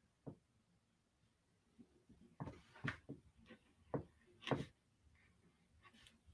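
Faint knocks and clicks of pens being handled on a wooden table as one pen is put down and a 03 fineliner is picked up, with a cluster of them in the middle and the loudest about four and a half seconds in.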